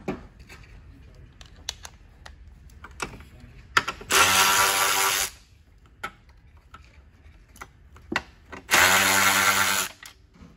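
Cordless 3/8-inch electric ratchet running in two bursts of about a second each, about four and nine seconds in, spinning a 10 mm bolt. Light clicks and knocks of the tool on metal come between the bursts.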